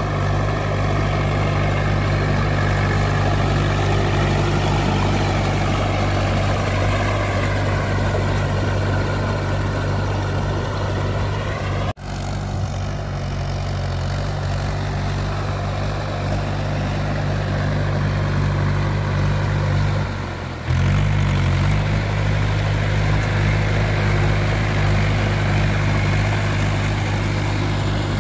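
Mahindra 575 DI tractor's diesel engine running steadily under load as it drives through paddy mud on cage wheels. The sound breaks off briefly twice, at edits in the footage.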